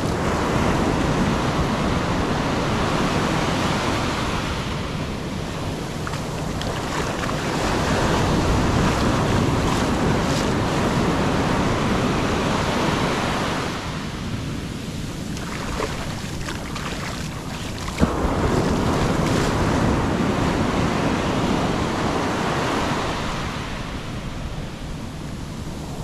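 Atlantic Ocean surf breaking and its foam washing up and back over the sand at the water's edge, swelling and easing every several seconds, with wind buffeting the microphone. A single sharp click about eighteen seconds in.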